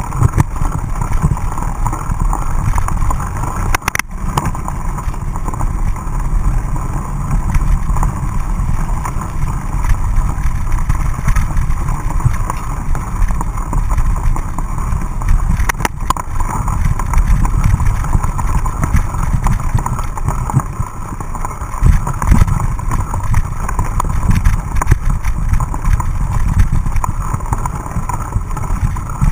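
Mountain bike riding fast down a muddy dirt singletrack: wind rumbling on the microphone over the steady rattle and rumble of the bike on the rough trail, with two sharp clicks, one about four seconds in and one about sixteen seconds in.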